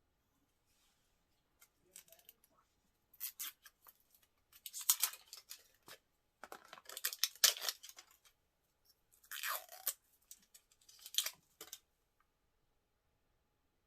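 Packaging of a crayon lipstick being torn and opened by hand: crackly tearing and rustling in about five short bursts, starting about three seconds in and stopping near the end.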